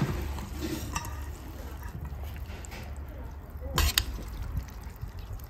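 Metal chopsticks stirring and lifting noodles in broth in a metal bowl, with liquid sloshing, a light tap about a second in and a sharp clink against the bowl just before four seconds in.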